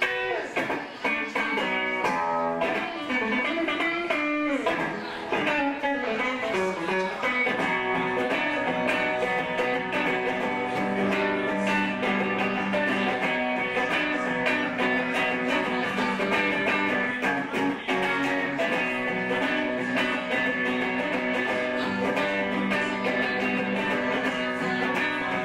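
Electric guitar played live through an amplifier: bending, sliding notes in the first several seconds, then steady, sustained chords.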